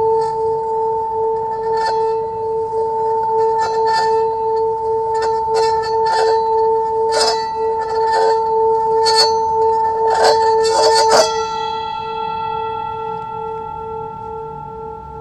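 A sustained ringing tone with a slow wobble, struck over and over by irregular sharp clinks. A last, loudest strike about eleven seconds in leaves a fuller ringing that slowly fades.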